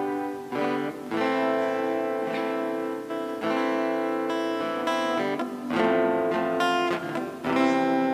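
Acoustic guitar strumming chords with electric keyboard accompaniment, an instrumental introduction before the song's vocal comes in; the chords change every second or two.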